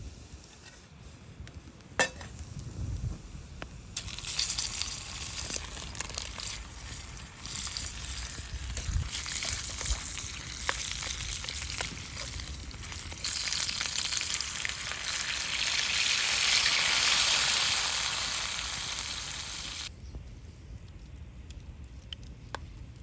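Food sizzling and crackling in a hot pan. It starts about four seconds in, grows louder, and cuts off suddenly near the end.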